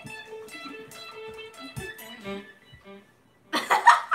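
Electric guitar playing a run of single notes that stops about three seconds in. Near the end, a loud burst of laughter.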